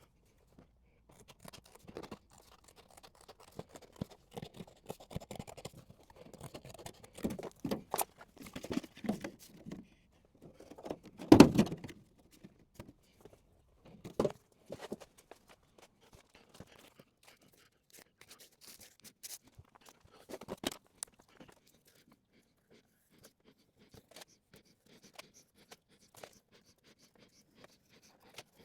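Intermittent small knocks, clicks and scrapes of objects being handled in a small room, busiest a few seconds in, with one louder knock about eleven seconds in.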